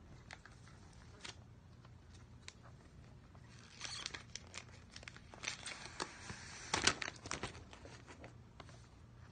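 Plastic wrap on an iPhone box crinkling and tearing as it is pulled off, with light taps of the cardboard box handled in the hands. Scattered ticks at first, then a spell of dense crackling rustle from about the middle, loudest a little before the end.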